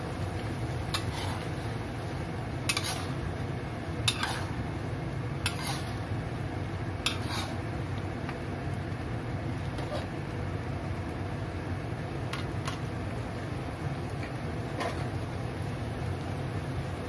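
Spatula scraping and knocking against a wok while stirring prawns simmering in chili sauce: about ten short scattered clinks, most of them in the first eight seconds, over a steady low rumble.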